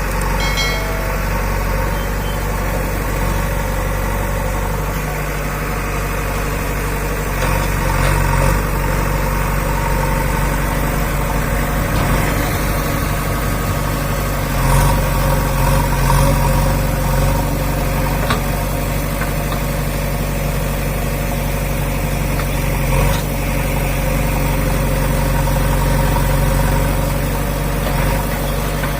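Diesel engine of a JCB backhoe loader running steadily, picking up a little under load now and then, with a few short knocks.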